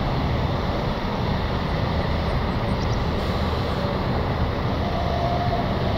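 Boeing 777F freighter's twin GE90 turbofan engines at climb power just after takeoff: a steady low rumble, with no rise or fall in level.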